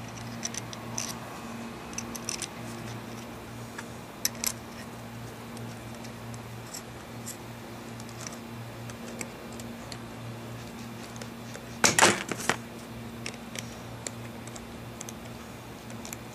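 Small metal clicks and taps as screws are handled and driven into a ZF 5HP19 transmission valve body, with a louder cluster of clicks about twelve seconds in. A steady low hum runs underneath.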